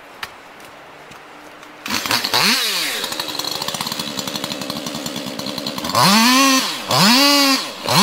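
Chainsaw comes in about two seconds in and briefly revs. It then runs at lower speed with a fast, even beat, and from about six seconds it is run up hard twice, each time rising and then sagging in pitch.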